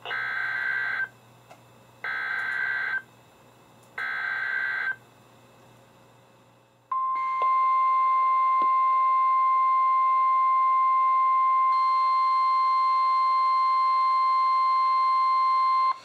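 NOAA Weather Radio alert through weather alert radios: three one-second bursts of the SAME digital header, two seconds apart, then after a short pause the 1050 Hz warning alarm tone, held steady for about nine seconds. It is the signal that a warning, here a Special Marine Warning, is about to be read.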